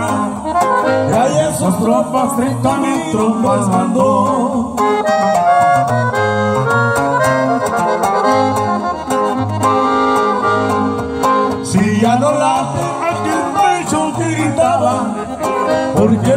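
Live band music led by a button accordion over a strummed acoustic guitar, with a steady pulsing bass beat.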